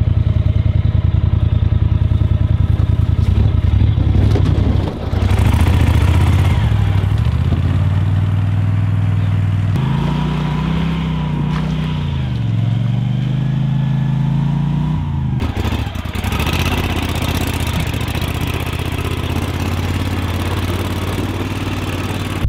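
Boat motor running under way, its pitch rising and falling a few times about halfway through as the revs change.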